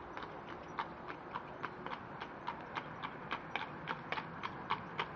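Horse hooves clip-clopping in a steady walking beat of about three to four strikes a second, growing louder toward the end.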